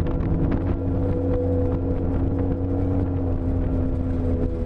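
Ford Raptor pickup driving, its engine running in a steady drone under road and wind noise with scattered small ticks.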